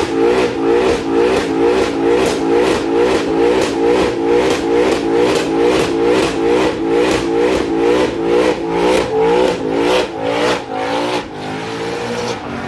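Car doing a smoky burnout: the engine is held at high revs with the tyres spinning, the sound pulsing evenly about three times a second. The pulsing weakens after about ten seconds and the sound drops away near the end.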